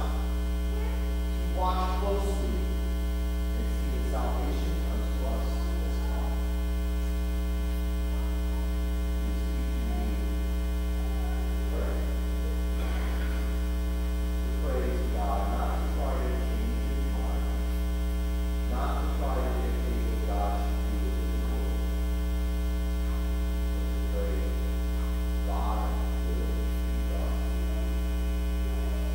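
Steady electrical mains hum, with faint snatches of a voice here and there.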